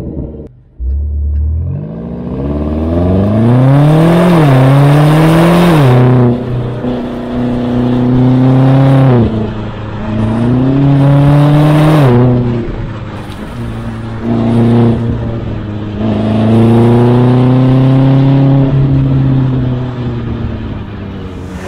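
BMW X6 M Competition's 4.4-litre twin-turbo V8, heard at its petrol-particulate-filtered exhaust tips, pulling away about a second in and then accelerating in several pulls. The pitch climbs and drops sharply at each upshift or lift-off, with steadier cruising stretches in between.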